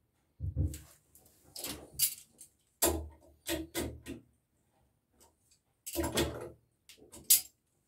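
A series of short, irregular metallic clicks and knocks as a faucet aerator is threaded onto a mixer tap's spout by hand and then tightened with pliers.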